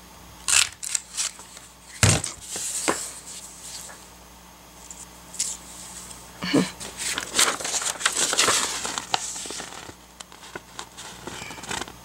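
Handheld circle paper punch clicking as it is squeezed through patterned paper, with a few sharp snaps, then paper rustling and crinkling as the punched-out circle and sheets are handled.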